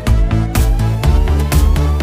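Electronic dance background music with a steady beat and a rising synth sweep.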